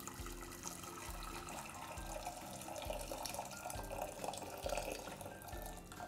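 Hot water pouring in a steady stream from an electric kettle into a stainless steel pot, filling it for pasta.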